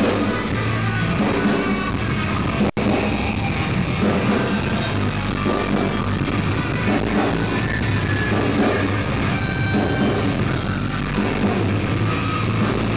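A rock band playing live, with electric guitar at the front of the mix, loud and steady. The sound cuts out for a split second about three seconds in.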